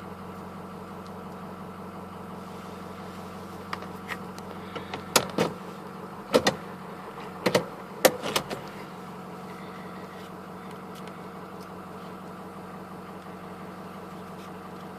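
Ford F-250 Super Duty diesel engine idling steadily, with a handful of sharp clicks and knocks between about four and nine seconds in.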